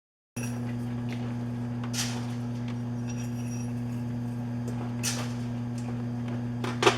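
A steady low electrical hum from shop equipment, with a few short clicks and knocks, likely from handling tools or the workpiece, about two, five and seven seconds in.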